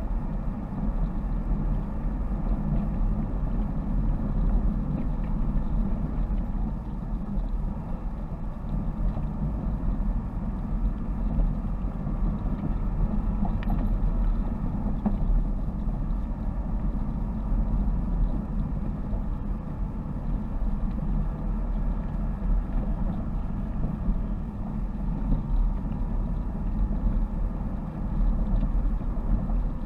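Car engine and tyre noise heard from inside the cabin while driving at a steady pace along a gravel forest road, a low, even rumble without big revs.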